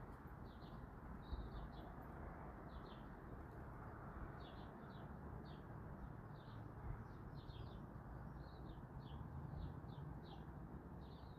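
Small birds chirping: many short, high chirps scattered throughout, faint, over a steady low background noise of outdoor ambience.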